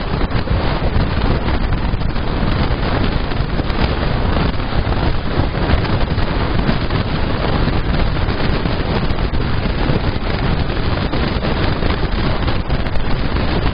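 Indian Railways passenger train running at speed, heard from an open coach window: a loud, steady rush of wind buffeting the microphone over the rumble of the train on the track.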